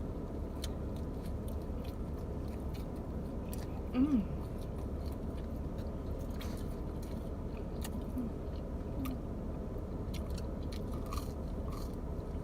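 Pizza and cheese bread being bitten and chewed, with many small wet mouth clicks over a steady low hum. A brief voiced sound about four seconds in.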